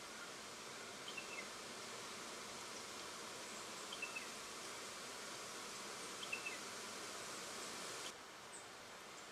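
Steady high insect buzzing that cuts off abruptly near the end, with a few faint short bird chirps over it.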